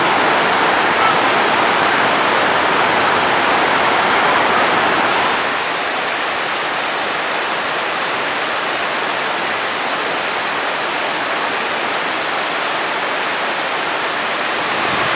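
Waterfall water rushing and splashing as a steady, loud roar, a little quieter from about five seconds in.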